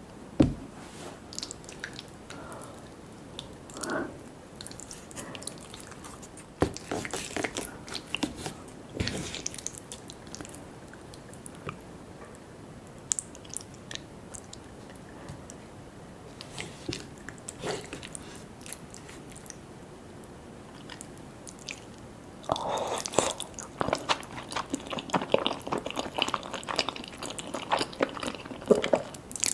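A person eating, chewing and biting with occasional wet smacks. About three-quarters of the way through, this turns into a dense run of crunching bites.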